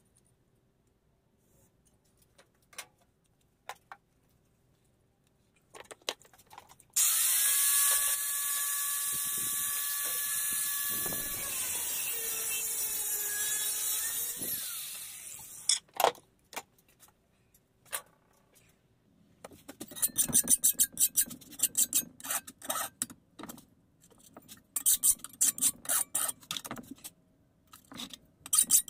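Angle grinder cutting steel for about eight seconds, a loud steady hiss with a whine over it, then winding down. Before it come a few light taps, and later bursts of rapid metallic clicking and knocking.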